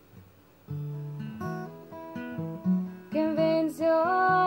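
Acoustic guitar picked in separate notes, starting after a short quiet pause about half a second in. A woman's singing joins the guitar about three seconds in.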